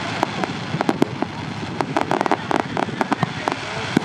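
Aerial fireworks display: shells bursting in a rapid, irregular run of sharp bangs and crackles, several a second.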